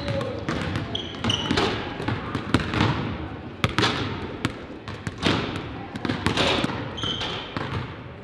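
Basketballs bouncing on a hardwood gym floor, many irregular thuds echoing around the hall, with a few short sneaker squeaks.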